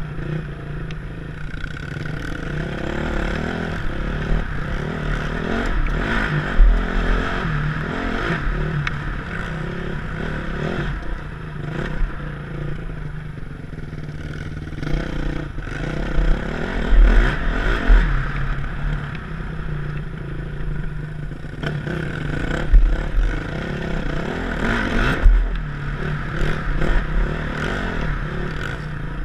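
Four-stroke single-cylinder dirt bike engine ridden on a dirt track, its revs rising and falling with the throttle, heard from a helmet-mounted camera. Heavy low thumps hit the microphone several times.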